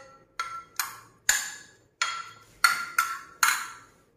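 Steel spoon clinking against a glass dish while stirring chopped fruit: about seven ringing taps, roughly two a second, each dying away quickly.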